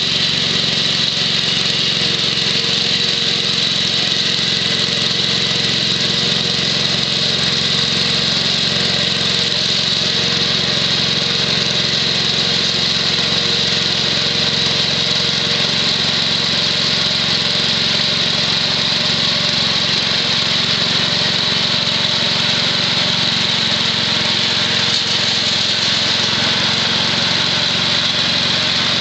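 The 6 HP Tecumseh H-60 single-cylinder engine of a 1967 Wheel Horse Lawn Ranger tractor running steadily, driving a 32-inch snowthrower as it clears snow.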